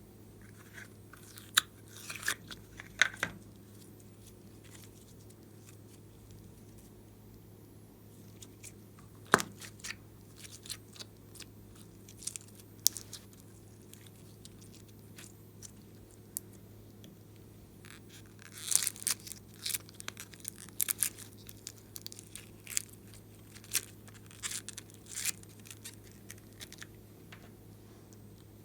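Glossy slime being worked by hand, making scattered sticky clicks and pops. They are sparse at first and come in dense clusters in the second half.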